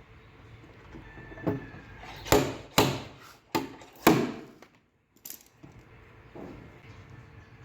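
About six sharp, irregularly spaced metallic knocks and clinks from body-repair tools against metal, each ringing briefly.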